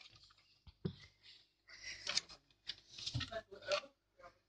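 Rustling, scuffing and a few light knocks from a dog moving about close to a handheld phone, mixed with the noise of the phone being handled. The sounds come in short clusters, busiest in the second half.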